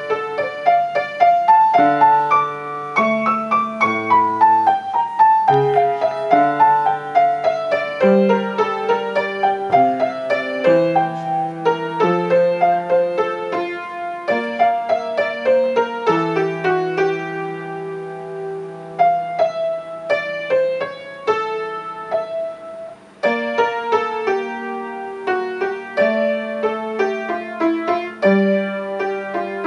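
Solo piano playing a flowing melodic piece, the right hand moving in runs of notes over held bass notes, with a long falling run a few seconds in and a brief break about two-thirds of the way through.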